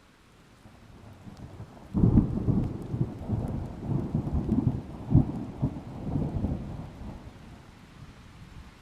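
A thunderclap over steady rain: a low rumble builds, breaks sharply about two seconds in into a loud rolling peal with repeated cracks, and fades away over the last few seconds.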